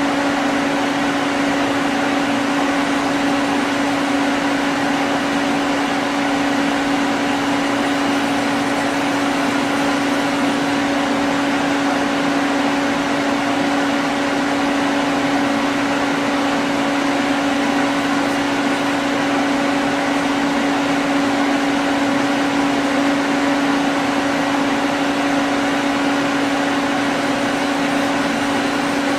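Citizen M32 CNC Swiss-type lathe powered up and running: a steady mechanical hum with one constant low tone and a fainter tone above it, over an even hiss.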